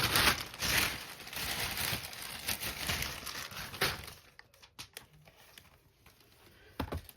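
Packaging crinkling and rustling as it is handled and opened, dense for about four seconds. It then quietens to a few light clicks and taps.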